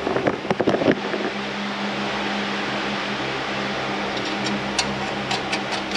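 A steady mechanical hum from a running fan, with a quick cluster of light metallic clicks and clatter in the first second and a few sharp ticks near the end as small metal link hardware is handled.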